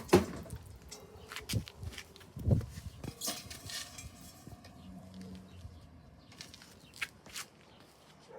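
Quiet background with scattered, irregular knocks and clicks, the loudest in the first few seconds.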